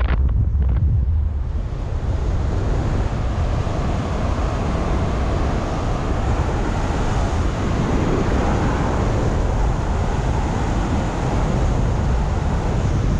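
Wind rushing over the microphone in flight, a steady heavy rumble with a hiss on top, the airflow of a paraglider in the air.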